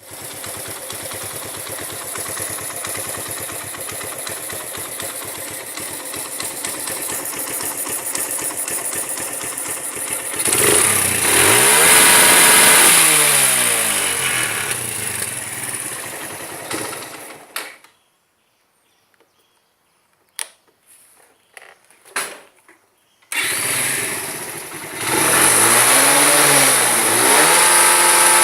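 Suzuki Yes 125's single-cylinder four-stroke engine idling with a rapid 'tec tec tec' ticking, which the owner puts down to the valves or the cam chain. It is revved up and down twice. It stops about eighteen seconds in, a few clicks follow, and it starts again about five seconds later.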